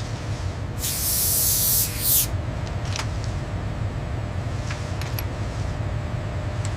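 A loud hissing spray bursts in about a second in and lasts about a second and a half, over a steady low rumble, with a few faint clicks later.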